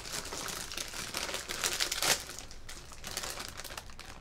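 Crinkling of a Smartfood popcorn snack bag being opened and handled, a dense crackle loudest about two seconds in.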